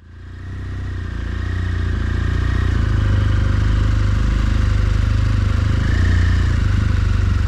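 BMW R1200GS Adventure's flat-twin boxer engine running steadily, fading in over the first second or two.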